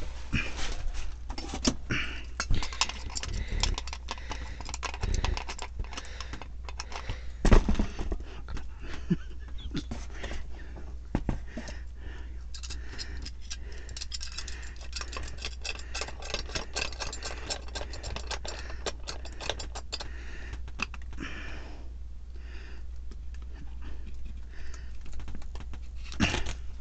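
Metal adjustable wrench being handled and worked: clinks, rattles and scrapes, with a louder knock about seven seconds in and a quick run of small clicks in the middle, over a steady low hum.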